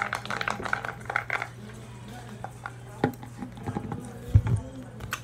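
Indistinct, muffled voices for the first second or so, then a steady low hum with a few scattered clicks and knocks, such as hands handling a plastic cup close to the microphone.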